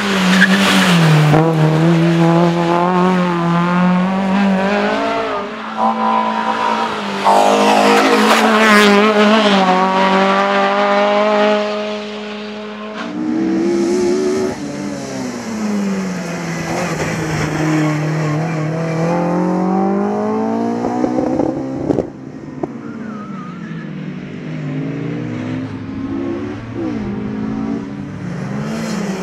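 Race-prepared Mazda MX-5 roadsters driven hard on a hillclimb, their engines revving up and dropping in pitch with each gear change and bend. One car is heard for about the first thirteen seconds, then another.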